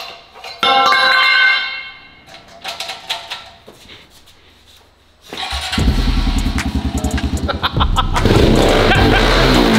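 A small single-cylinder four-stroke pit bike engine (Honda CRF110) starts about five seconds in and runs with an even pulsing beat, revving up near the end. A brief loud pitched sound comes about half a second in, before the engine starts.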